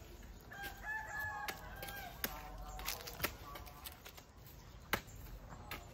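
A rooster crowing once, a held call about a second and a half long, along with a few sharp knocks, the loudest near the end.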